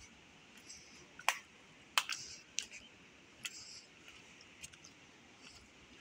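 Footsteps crunching on a dry, stony trail strewn with leaves and gravel: a handful of sharp, irregular crunches, the loudest two about a second and two seconds in.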